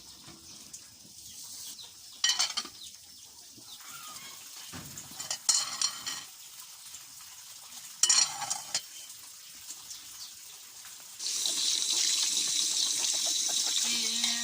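Water running steadily from a tap. It is turned on abruptly near the end, after three brief splashes of water.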